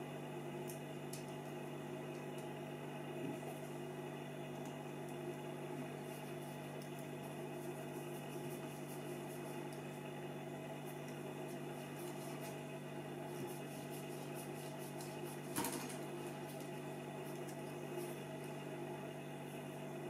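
Faint clicks and handling noises of a screwdriver working screws on the metal chassis of a Sharp 939 cassette mechanism, with one sharper click about fifteen and a half seconds in, over a steady low hum.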